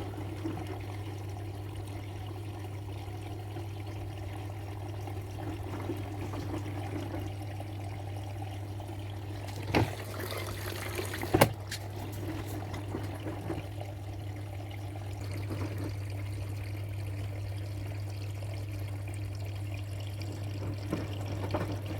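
Front-load washing machine filling with water: water running into the drum over a steady electrical hum, with two sharp clicks about ten and eleven seconds in.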